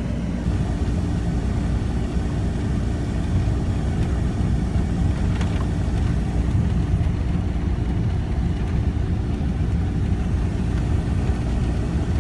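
Car driving along a dirt and gravel road, heard from inside the cabin: a steady low rumble of engine and tyres.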